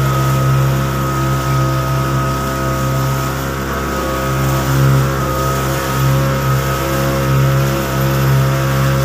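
Motorboat engine running steadily under way, a constant drone, over the rush and splash of water along the hull.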